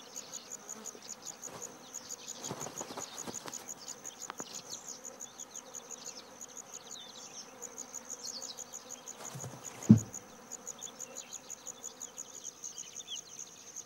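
Insects of the summer steppe: a high, rapid, evenly pulsing chirring, with the buzz of swarming black flies beneath it. A brief low thump about ten seconds in.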